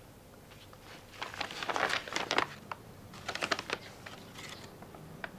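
Manila paper envelope being opened by hand, its stiff paper crackling and rustling in two clusters of short bursts, with a single click near the end.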